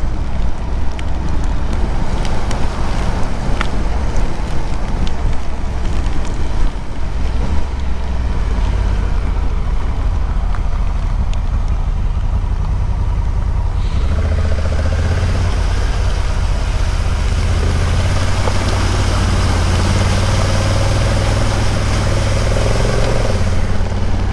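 Adventure motorcycle running at road speed, a steady low engine rumble with wind on the microphone. About 14 seconds in, a steady hiss of water spray joins as the tyres run through standing floodwater on the road.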